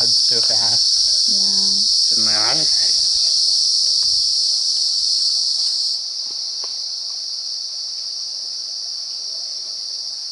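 Rainforest insect chorus: a loud, steady, high-pitched buzzing drone that drops in level about six seconds in.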